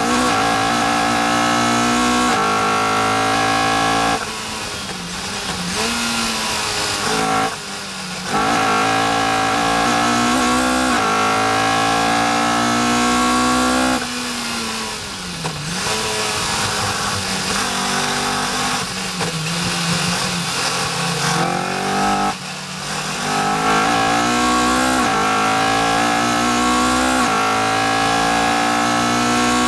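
Caterham R400's four-cylinder engine, heard from the open cockpit at racing speed, climbing in pitch under full throttle. It is broken several times by brief lifts for gear changes, and once by a longer drop in pitch under braking about halfway through.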